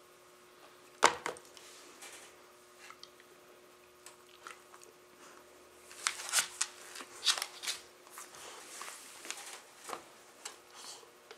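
Dogs play-fighting: a sharp knock about a second in, then from about six seconds a run of quick scuffling clicks and crunches, like mouthing and chewing.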